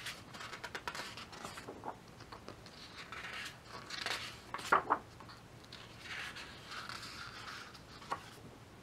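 Pages of a large hardcover photobook being turned by hand: paper swishing and rustling with light taps, and one sharper snap of a page a little under five seconds in.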